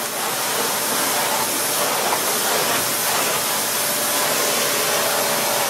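Vacuum cleaner motor running steadily: a loud airy rush with a faint whine.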